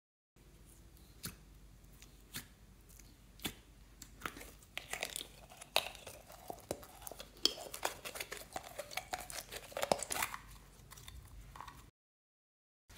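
Clear glitter slime being squeezed and peeled out of a thin plastic tub: a few sharp plastic clicks at first, then a dense run of sticky crackling and squishing as the slime pulls free. It stops with a brief cut to silence near the end.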